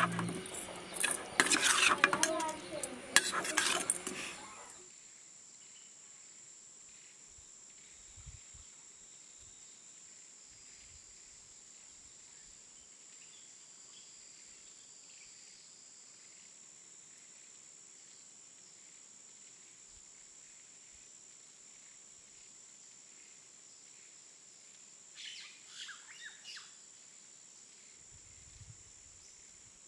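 A metal spoon clatters and scrapes against a stainless steel bowl as boiled snail meat is mixed with turmeric and salt, for about the first four seconds. After that it is quiet, with a faint steady high tone and a few bird chirps near the end.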